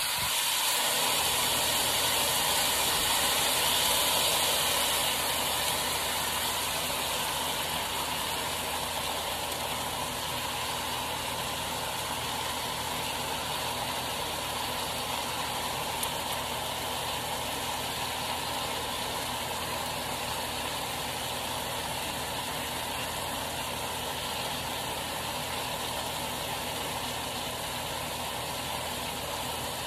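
Orange juice and beef sizzling in a hot non-stick skillet as orange halves are squeezed over it by hand. A steady hiss that eases slowly after the first few seconds.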